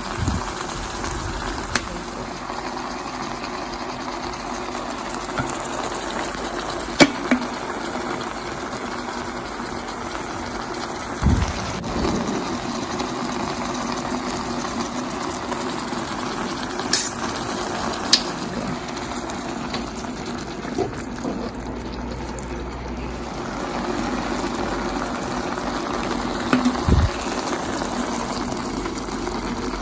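Liquid bubbling steadily in a cooking pan, with a few sharp knocks of a utensil against the pan.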